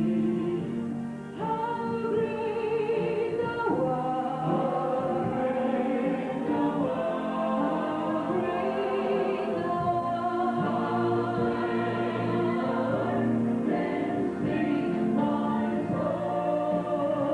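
Choir singing with musical accompaniment, in held, sustained notes.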